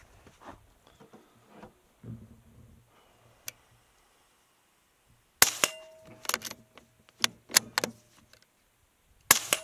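Two suppressed shots from a Savage MKII FV-SR bolt-action .22 LR rifle with a Dead Air Mask suppressor, firing Aguila Super Maximum rounds. The shots come about five seconds in and near the end, each followed by a brief ringing tone. Between them is a quick series of sharp clicks from the bolt being worked, and quieter handling noises come before the first shot.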